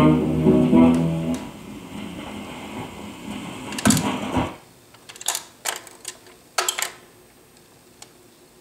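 Vintage record changer playing a 45 rpm single: the song's last note dies away a little over a second in, leaving run-out groove hiss. About four seconds in the changer trips with a thump, followed by several sharp mechanical clicks as the tone arm lifts and returns to its rest.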